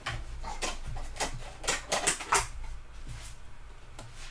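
Plastic containers clattering as one is taken from a stack: a run of irregular clicks and knocks.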